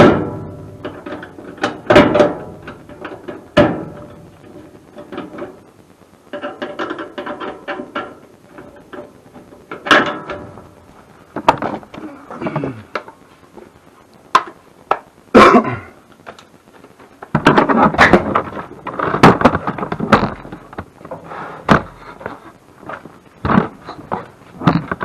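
Irregular thunks, knocks and clatter of hard objects being handled, with a few short squeaks.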